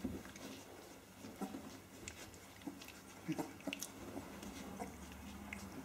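Australian Kelpie puppies, about 19 days old, wrestling and mouthing each other in play: a scatter of faint, short scuffles and clicks.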